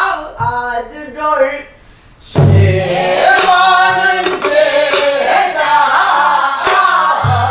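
A woman sings a phrase of a Namdo folk song in the throaty Korean folk style. After a short break, a group of voices sings together in unison, with a few sharp buk barrel-drum strokes keeping the beat.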